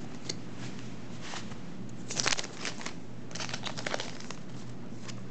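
Trading cards and foil booster-pack wrappers being handled: two short spells of crinkling and card rustling, a couple of seconds in and again about a second later.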